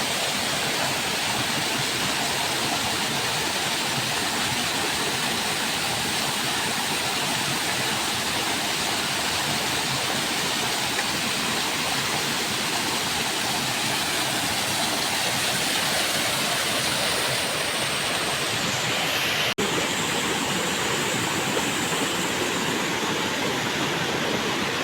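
Waterfall rushing steadily, a constant roar of falling water, broken once by a momentary gap about twenty seconds in.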